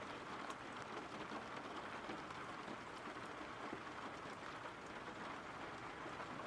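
Soft steady rain falling: an even hiss with faint scattered drop ticks.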